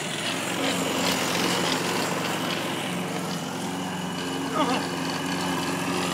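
Walk-behind petrol rotary lawn mower running steadily while being pushed over grass. A brief falling-pitch sound cuts in about four and a half seconds in.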